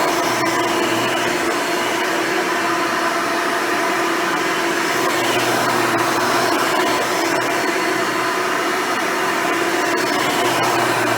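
Hoover Elite upright vacuum cleaner running steadily, its motor and dual-row brush roll giving a constant hum with scattered faint ticks.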